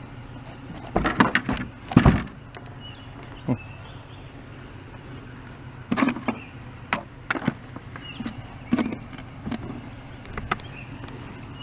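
Scattered knocks, taps and clacks as objects are picked up and set down on painted wooden boxes, loudest about one and two seconds in, over a steady low hum.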